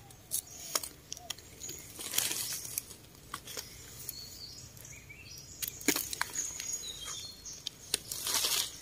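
Scattered rustles and snaps of dry forest leaf litter and twigs, with a brief louder rustle near the end. Small birds chirp in short high notes in the middle.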